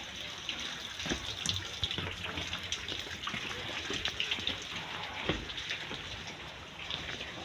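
Water running and splashing, with scattered small clicks and knocks over it.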